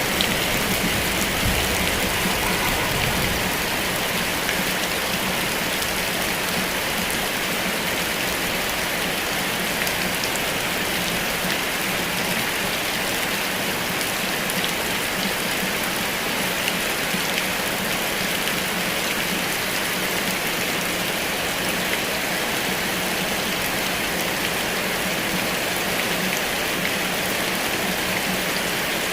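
Heavy rain falling steadily, a dense even patter with fine drop ticks.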